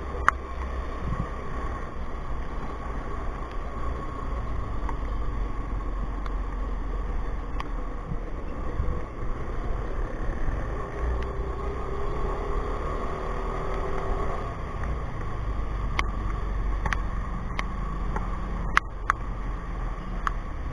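Motorcycle riding at low speed through traffic, its engine running steadily under road and wind noise, with a few sharp clicks near the end.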